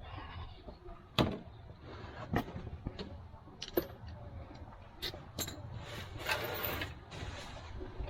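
Scattered sharp clicks and knocks of tools and parts being handled during an oil change, with a rustling scrape lasting about a second near the end.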